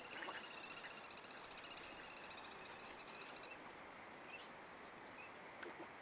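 Faint outdoor ambience with a distant, high, rapid trill that fades out about halfway through, and a few soft low notes near the end.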